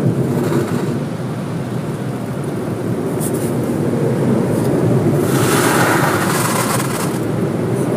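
Automatic car-wash air-dryer blowers running, heard from inside the car: a steady low rush, with a louder hiss of air sweeping over the car for about two seconds a little after halfway.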